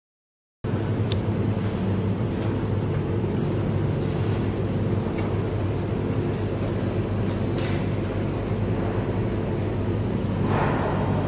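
Steady low droning hum of restaurant background noise, with a few faint clicks; it cuts in after a split-second of silence at the start.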